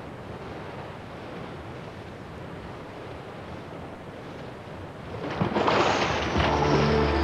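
Steady rushing of sea surf. About five seconds in, a louder shimmering swell rises and soft sustained music chords come in.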